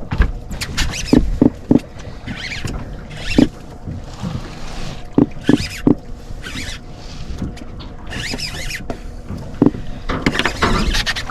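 Irregular hollow knocks and thuds on a boat, some in quick runs of two or three, between short bursts of hiss.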